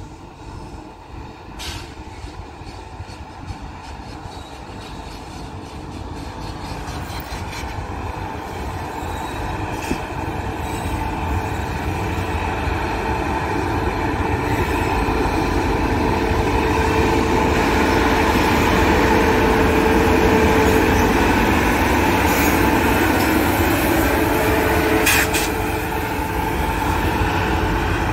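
WAP-7 electric locomotive hauling a passenger train, approaching and passing close by. The rumble of wheels on the rails grows steadily louder and peaks about two-thirds of the way through, under a steady hum. Two sharp clicks are heard, one about two seconds in and one near the end.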